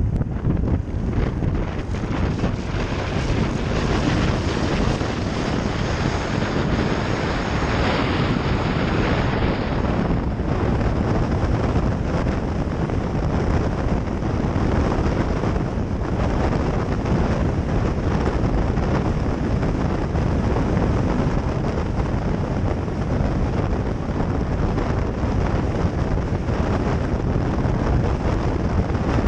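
Steady wind rushing over the microphone of a moving motorcycle, mixed with the bike's engine and road noise.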